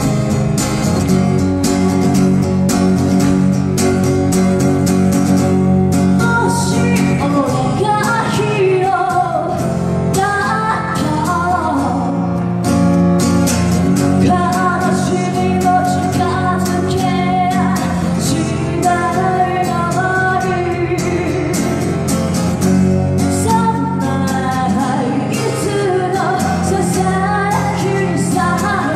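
A woman singing to her own strummed acoustic guitar. The guitar plays alone for the first several seconds before her voice comes in, and the strumming keeps a steady beat under the singing.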